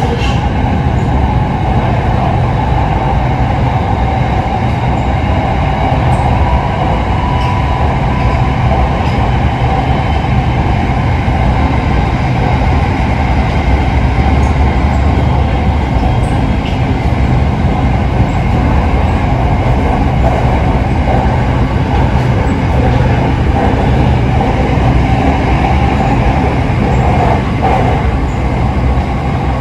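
SRT Red Line electric commuter train running steadily along the elevated track, heard from inside the carriage as a constant low rumble with a faint steady whine.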